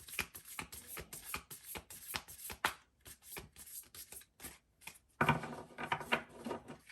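Oracle cards being shuffled by hand: a quick run of crisp flicks and slaps, with a denser, louder stretch of rustling about five seconds in.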